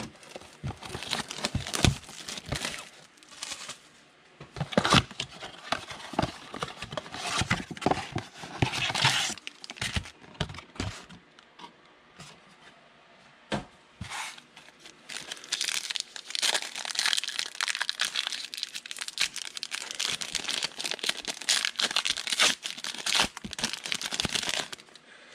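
A 2019 Panini Prizm Draft Picks trading-card box being torn open by hand, with cardboard flaps tearing and snapping, then a foil card pack crinkling and tearing in the hands as it is opened, the crinkling denser and continuous in the later part.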